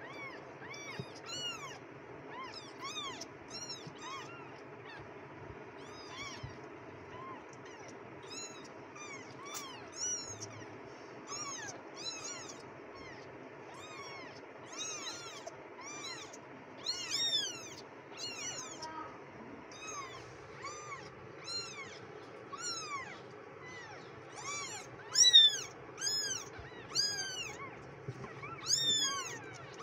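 Young kittens mewing: a near-constant string of short, high-pitched mews from several kittens at once, each call rising then falling in pitch. The calls grow louder in the last few seconds, with the loudest one about 25 seconds in.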